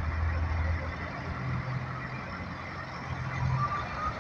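Diesel semi truck engine running low and steady as the tractor-trailer pulls away slowly. A faint high steady tone joins about three seconds in.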